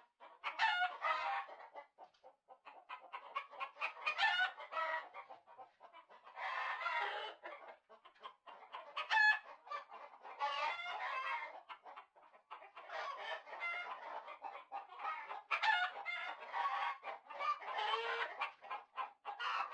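Chickens clucking and squawking in a long run of calls broken by short pauses.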